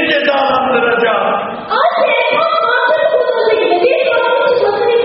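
A group of voices singing together without instruments, holding long notes that slide in pitch.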